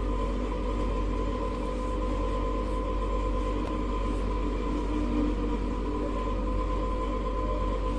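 A steady machine hum with a few constant tones.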